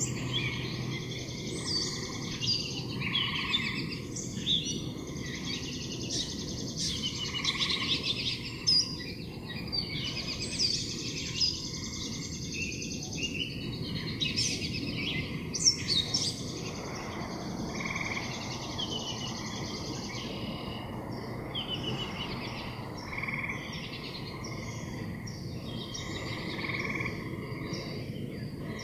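Frogs croaking in a pond with songbirds singing over them. The birdsong is busiest in the first half and thins out later, leaving the frog calls clearer.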